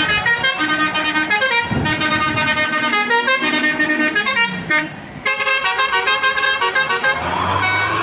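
Multi-trumpet 'telolet' bus air horn playing a fast tune of short chorded notes, with a brief break about five seconds in.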